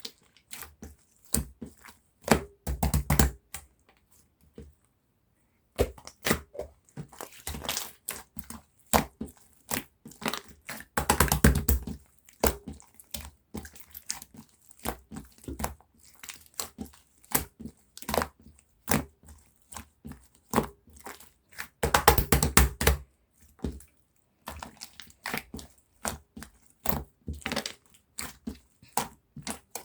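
Bubble-filled slime being squished and pressed by hand, its trapped air pockets popping and crackling in quick, irregular clicks, with a pause of about two seconds near the start.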